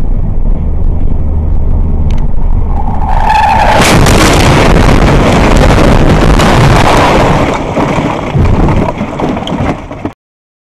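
Car running along a highway, heard from inside the cabin. Tires squeal about three seconds in, then comes a long loud crash as the car leaves the road and rolls over, with scraping and banging, until the sound cuts off abruptly near the end.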